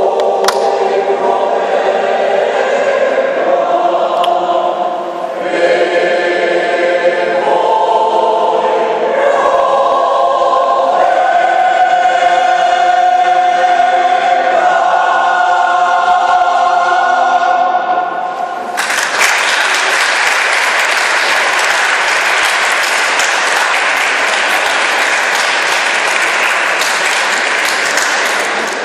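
Mixed choir of men's and women's voices singing, ending the piece about two-thirds of the way through. Audience applause starts right after and continues.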